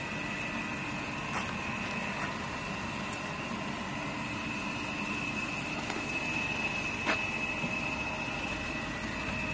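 Conveyor tunnel automatic car wash machinery running: a steady mechanical hum with a high, even whine, and a few light knocks, the loudest about seven seconds in.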